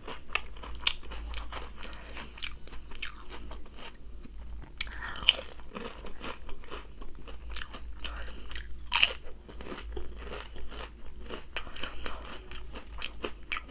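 A person chewing and biting food close to the microphone, with many short crisp crunches and two louder ones about five and nine seconds in.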